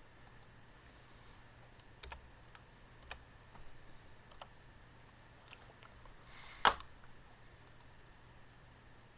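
A few faint computer keystrokes and mouse clicks, with one louder click about two-thirds of the way in, over a faint steady low hum.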